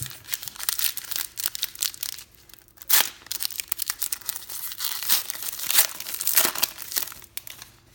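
Trading-card pack wrapper being torn open and crinkled by hand: a dense crackling rustle with sharp rips about three seconds in and again near six seconds.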